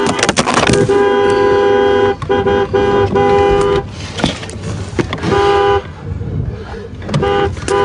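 Car horn sounding in repeated blasts, two tones at once: two long blasts of about two seconds each and a short one in the first four seconds, then shorter blasts about five and seven seconds in. Knocks from the phone being handled fall between them.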